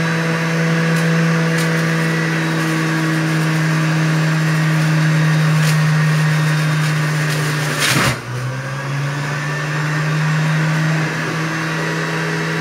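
Juiceman centrifugal juicer's motor running with a loud, steady hum while fruit is pushed down the feed chute. About eight seconds in there is a short burst of noise, and the motor's pitch sags under the load, then climbs back about three seconds later.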